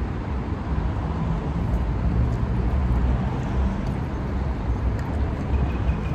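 Steady low outdoor rumble, with no distinct single event standing out.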